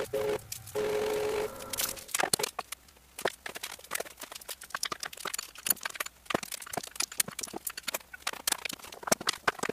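Rapid, dense clicking and clattering of the Anet A8's acrylic frame plates, screws and hand tools being handled and fitted together, sped up. About a second in there is a brief steady humming tone.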